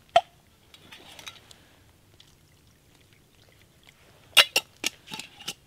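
Sharp clicks and light scraping from handling a small clear container while collecting tree resin. There is one click just after the start, some faint rustling, then a quick run of five or six clicks near the end.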